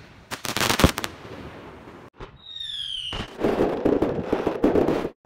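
Fireworks going off in quick cuts: a cluster of sharp bangs, then a high whistle falling in pitch over about a second, then a dense crackling that lasts about two seconds.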